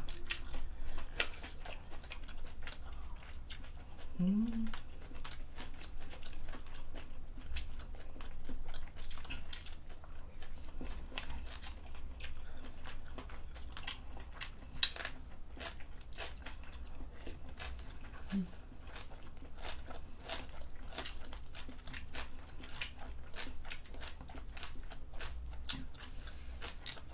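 Close-miked eating: food being chewed and bitten, with moist mouth clicks and crunches. A short voiced hum comes twice, rising about four seconds in and briefly near eighteen seconds.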